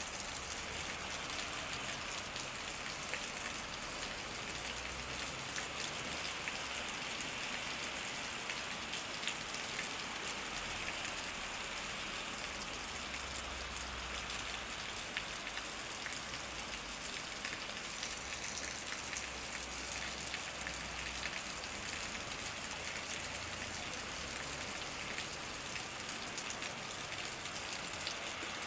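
Steady heavy rain falling on a street, with close individual drop hits throughout.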